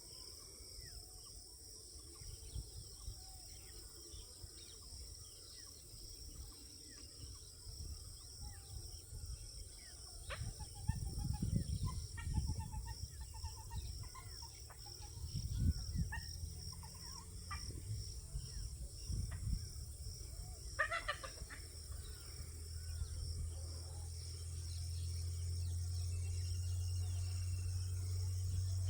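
Insects chirping steadily, with faint scattered calls and irregular low rumbling bursts through the middle. A steady low hum comes in about two-thirds of the way through.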